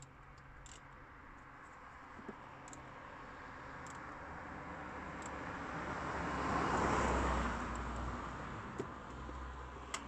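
A road vehicle passing by: a broad rushing noise with a low rumble that swells slowly, peaks about seven seconds in and fades away. A few faint clicks of handling tools and parts under the bonnet.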